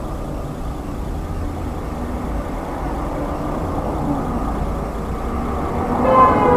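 Steady road and engine rumble of a moving car, as heard by a dashboard camera. A few held tones come in near the end.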